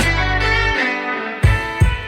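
Background music: plucked guitar over bass and drums, the bass and beat dropping out briefly near the middle before the drums come back in.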